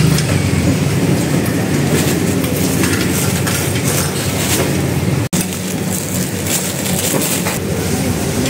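Busy street-food stall din: a steady clattering and rustling noise with no clear speech, broken by a sudden silent gap about five seconds in.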